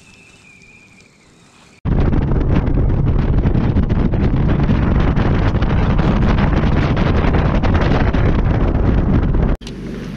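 Boat running fast with heavy wind buffeting the microphone: a loud, even rumbling rush. It starts suddenly about two seconds in and cuts off suddenly near the end, after a faint quiet stretch.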